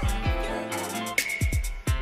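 Background music with an electronic beat: deep bass-drum hits that drop in pitch, sharp hi-hat and snare strikes, and held synth chords.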